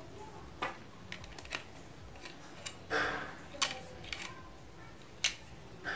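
Scattered light clicks and taps of an opened plastic multimeter case and its test probes being handled, with a short rustle about three seconds in.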